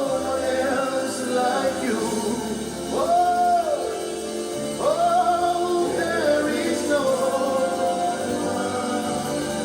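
Gospel worship music: a male voice sings drawn-out, wordless melodic lines over sustained keyboard and bass chords.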